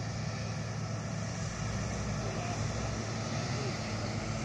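Steady low drone of heavy earthmoving machinery running at a construction site, diesel engines such as a bulldozer's, with a constant hiss over it.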